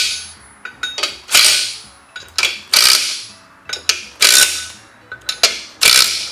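Cordless impact driver hammering in five short bursts about a second and a half apart, running bolts down into a 6R80 transmission's torque converter adapter plate, with small clicks between the bursts.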